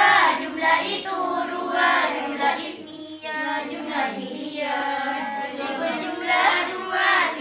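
A group of girls chanting together in a sing-song recitation, their voices held and sliding in pitch with hardly a pause.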